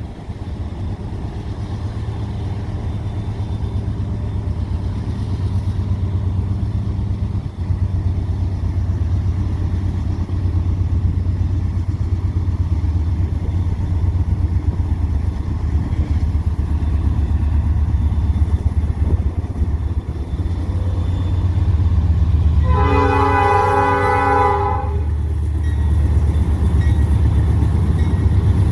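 Freight train diesel locomotives rumbling steadily and growing slowly louder. Near the end the locomotive's multi-chime air horn sounds a chord for about two seconds, then starts another blast.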